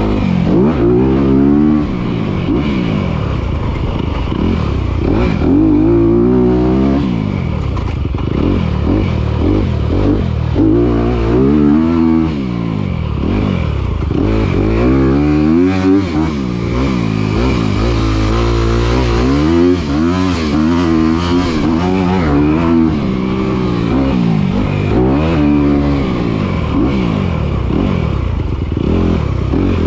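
Dirt bike engine under hard riding, revving up and dropping back over and over as it accelerates and shifts, each rise lasting a second or two.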